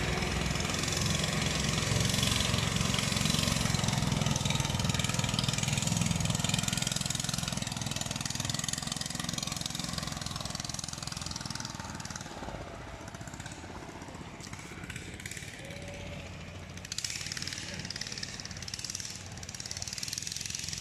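Long-tail boat's engine running at speed as the boat passes, loudest a few seconds in and then fading steadily as the boat moves off down the river.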